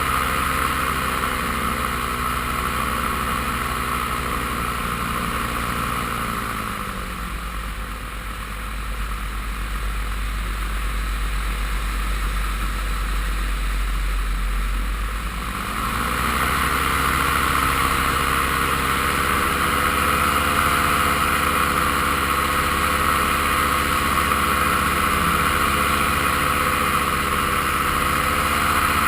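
Paramotor engine and propeller running steadily in flight. About six seconds in, the engine is throttled back and its pitch drops; it runs low under a deep rumble for about nine seconds, then is throttled up again with a rising pitch and holds steady.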